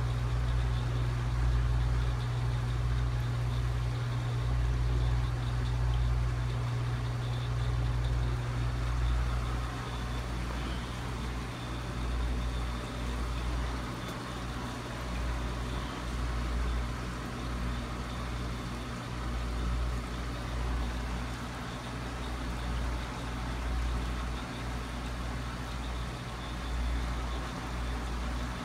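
A steady low machine hum with an uneven low rumble beneath it.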